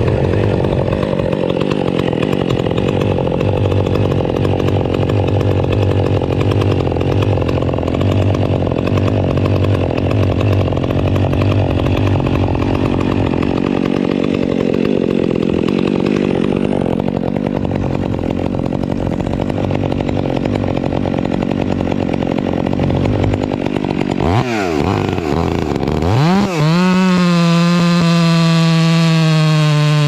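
Two-stroke chainsaw cutting into a large oak limb, running under load. About 24 seconds in its pitch drops and climbs back, then it runs on at a steady high pitch.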